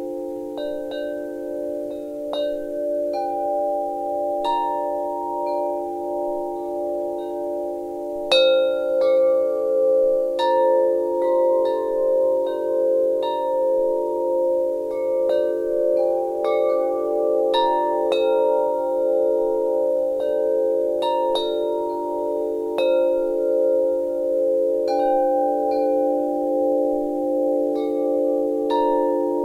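Wind chimes ringing: irregular strikes, a few a second at most, over a bed of long, overlapping tones that waver as they ring on. The strongest strike comes about eight seconds in.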